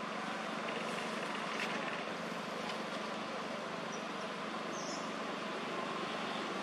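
Steady outdoor background noise with a constant low hum, with a few faint short high chirps about four and five seconds in.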